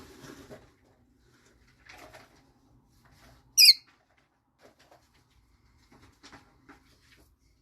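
Rosy-faced lovebird giving one short, piercing, very high-pitched chirp about three and a half seconds in, with faint rustling and scratching around it.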